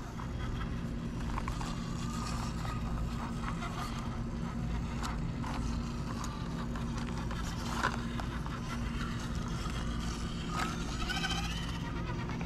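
Axial SCX24 micro rock crawler climbing boulders: its small electric motor and gears whir steadily under scattered clicks and knocks of the Injora tires and chassis on rock, with one sharper knock about eight seconds in.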